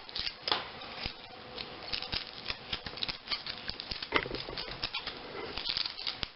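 Foil wrapper of a Kinder Surprise chocolate egg being unwrapped by hand, crinkling and rustling in quick, irregular crackles.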